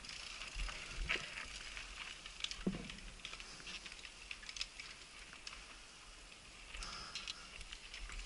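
Downhill mountain bike rolling down a dry dirt trail: a steady hiss of tyres on loose dirt, with scattered clicks and rattles from stones and the bike, heard from a helmet-mounted camera.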